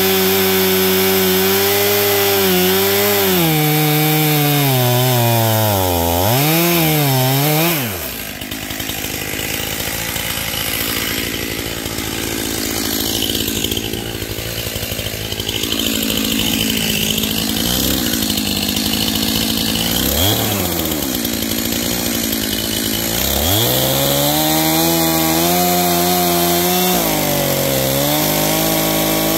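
Stihl chainsaw cutting into a tree trunk at full throttle, its revs wavering under load. About eight seconds in it drops back to idle for a quarter of a minute, with two short blips of the throttle. Then it revs back up and cuts into the trunk again near the end.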